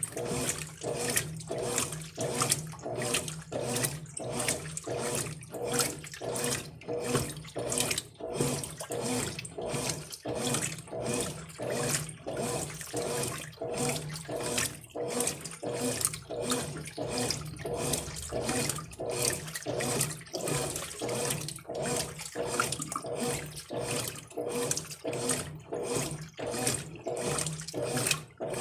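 Brastemp Ative 11 kg washing machine agitating a load of towels in rinse water: the water sloshes in an even rhythm of about two strokes a second over a steady motor hum.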